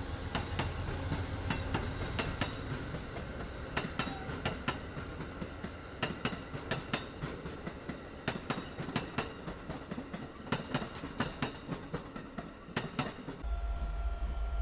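Amtrak passenger train passing close by, its wheels clicking irregularly over rail joints above a steady rumble. Near the end the sound changes suddenly to the deeper, steady rumble of a passing freight train.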